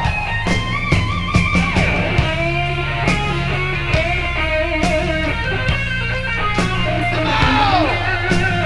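Live rock band playing an instrumental section: an electric guitar lead line with pitch bends over bass, drums and cymbal hits. The guitar makes a wide falling bend near the end.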